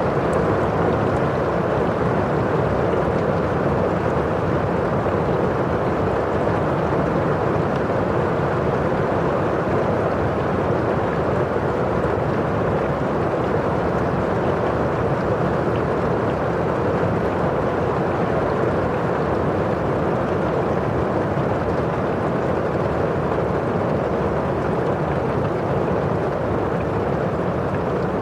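Steady rain falling on a window pane: an even, unbroken hiss with most of its weight in the low and middle range.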